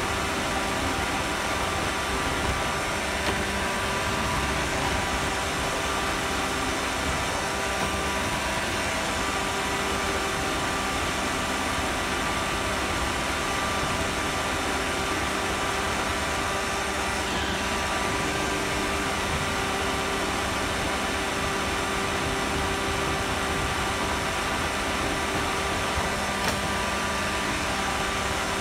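Roomba robot vacuum running, a steady whir of its motor and brushes with a few even hum tones, picked up close by a phone riding on top of it. A couple of light knocks come through, one a few seconds in and one near the end.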